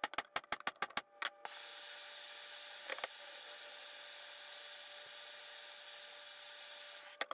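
A ball-peen hammer rapidly strikes an impact socket held against a heated stainless-steel exhaust header tube, a quick run of sharp metallic hits over about the first second and a half. Then a handheld MAP-gas torch hisses steadily as it reheats the tube, and a single strike comes near the end.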